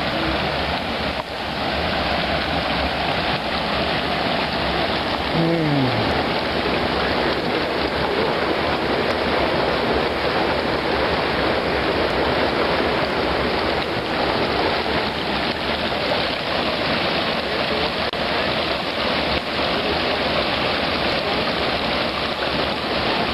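Creek water rushing steadily over rocks and a small cascade, a continuous loud wash. About five seconds in, a short falling tone passes briefly.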